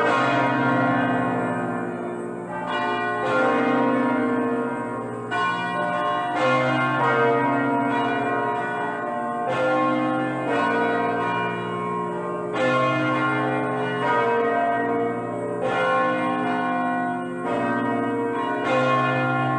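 Several church bells of different pitches ringing together, struck in turn every second or two, each strike ringing on into the next.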